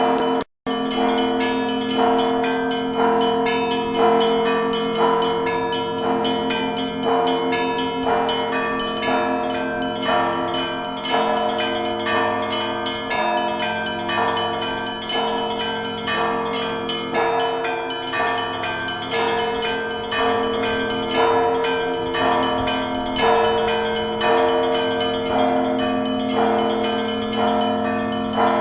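Russian Orthodox church bells in Suzdal ringing a zvon: several bells of different pitch struck in a steady repeating pattern, about two strikes a second, over the long hum of the larger bells. The sound cuts out completely for a moment about half a second in.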